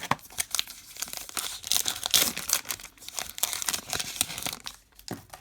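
Crinkly baseball card pack wrapper being torn open and crumpled by hand, a dense crackling that is busiest in the middle.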